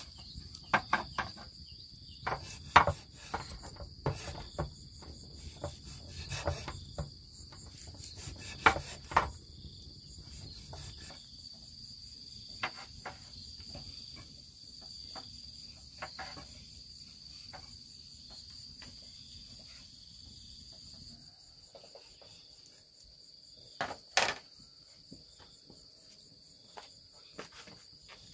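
A heavy cleaver chopping and slicing pork on a wooden chopping block, giving sharp knocks that come quickly at first and then more sparsely. Two louder knocks come a few seconds before the end. Steady high insect chirring runs underneath.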